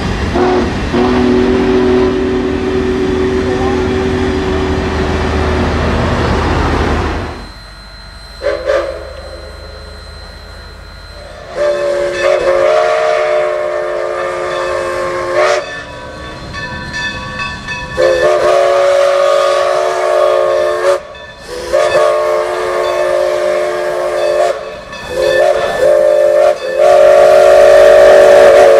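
A long Union Pacific passenger train running past on the rails, with a steady two-note whistle tone held for about five seconds. Then, after a cut, steam locomotive SMV 205's chime whistle blows a series of long blasts, with a short one near the end, the last blast the loudest.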